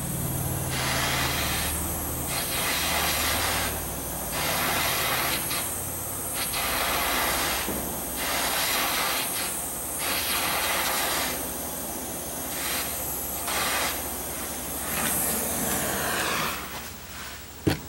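Handheld gas torch burning with a steady hiss, its flame played over polyethylene plastic; the hiss dips every second or two and stops near the end.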